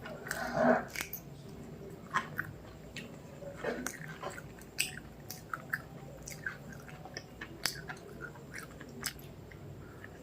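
Close-miked chewing, with irregular wet mouth clicks and smacks. A brief louder sound comes about half a second in.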